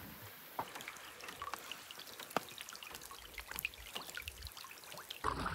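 Rain falling on a lake: a light hiss with many scattered, irregular ticks of single drops hitting the water.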